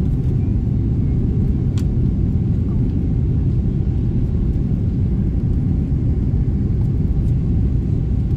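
Cabin noise of a Boeing 777-300ER on approach, heard from inside the cabin: a steady low rumble of its GE90 engines and the airflow over the fuselage. A faint click comes a little under two seconds in.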